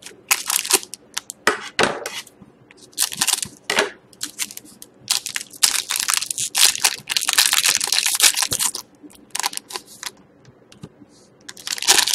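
Foil wrapper of a hockey trading-card pack being handled, crinkled and torn open. Irregular crackling bursts, heaviest in a long stretch in the middle and again near the end.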